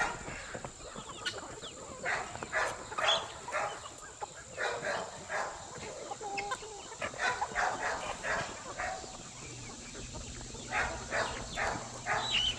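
Chickens clucking in short, irregular calls, with a low steady hum coming in near the end.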